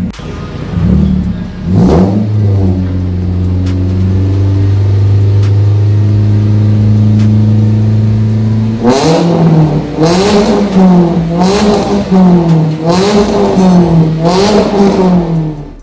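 Daihatsu Terios's four-cylinder engine revving through an aftermarket exhaust with a replacement header and SVG resonator: two quick blips, then held at a steady high rev for about seven seconds, then a run of about five revs rising and falling in quick succession.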